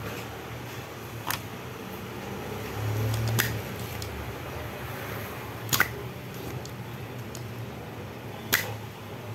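Desoldering an optocoupler from an LED TV main board: four sharp clicks a couple of seconds apart, the third the loudest, over a steady low hum.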